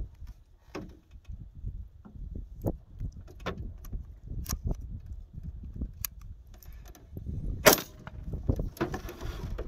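Gunshots at an outdoor shooting range: a handful of faint, sharp cracks spread through, then one much louder crack about three-quarters of the way in, followed by a short rush of noise.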